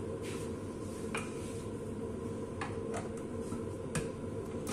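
A few light clicks and taps from handling a glass-jug countertop blender, the sharpest about four seconds in as the jug is seated on its base, over a steady low hum.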